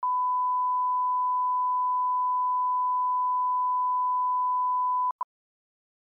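Steady pure reference tone of a colour-bar countdown leader, cutting off about five seconds in, followed by one short countdown beep.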